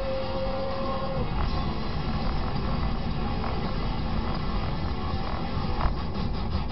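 Steady in-car rumble of a car driving on a wet road: tyre and engine noise heard through the cabin. A held tone stops about a second in, and there is a light knock about six seconds in.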